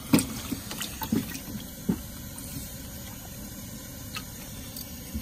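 Freshly caught dace splashing in a plastic bucket of water: a few short, sharp splashes, the loudest at the start and two more about a second apart, over a steady hiss.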